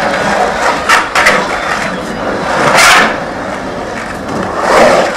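Skateboard wheels rolling on the concrete of an empty pool bowl, swelling louder several times as the board carves up and down the walls, with a few sharp clacks about a second in.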